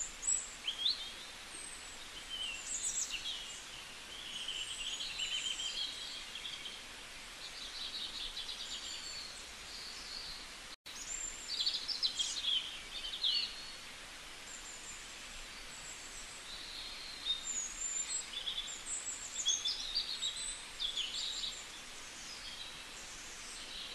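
Many birds chirping and calling in short, high-pitched phrases, one after another, over a faint steady outdoor hiss.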